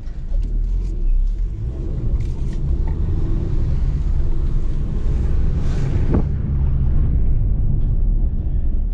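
Low, steady rumble of a small hatchback's engine and tyres, heard from inside the cabin while it is driven, with a single click about six seconds in.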